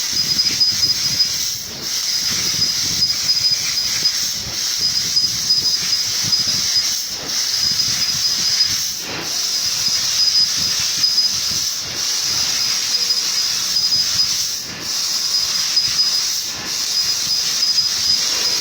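CNC machine running: a steady hiss with a thin high whine over it, easing off briefly every two to three seconds.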